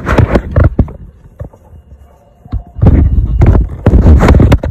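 Close-up handling noise: knocks, clicks and rubbing as gloved hands work on engine-bay parts right by the microphone. A short spell in the first second, then a louder, longer spell from about three seconds in.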